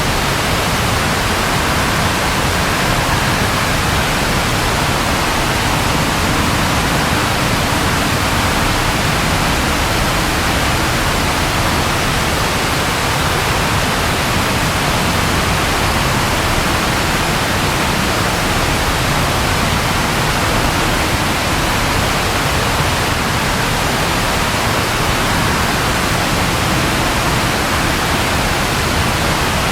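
Steady rain, an even hiss that keeps the same level throughout.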